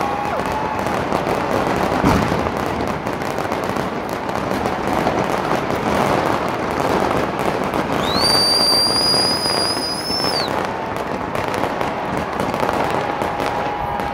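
Stadium fireworks: dense, continuous crackling from pyrotechnic fountains and shells, with a sharper bang about two seconds in. A little past halfway a high, steady whistle sounds for about two seconds, gliding up as it starts and down as it ends.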